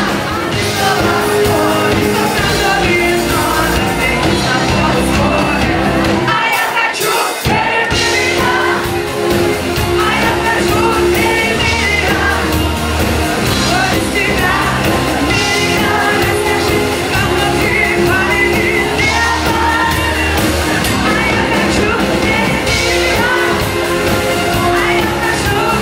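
Live rock cover band playing, a woman singing lead, with the crowd shouting along. The bass and drums drop out for about a second around six seconds in, then the band comes back in.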